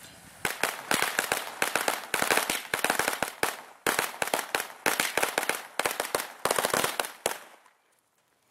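A string of firecrackers popping rapidly in irregular clusters, standing in for gunfire. The pops stop abruptly after about seven seconds.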